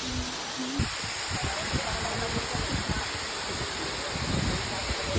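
Waterfall, a steady rushing hiss of falling water, with irregular low buffeting on the microphone starting about a second in.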